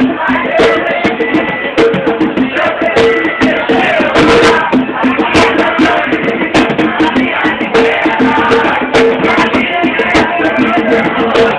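Live percussion music led by an atabaque hand drum, struck in a fast, dense rhythm.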